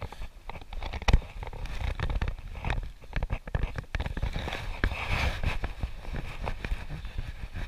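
Rustling and crackling of dry fallen leaves and jacket fabric, with handling rubs on the chest-strapped camera as a wolf shifts on the leaves and is petted. A sharp knock about a second in.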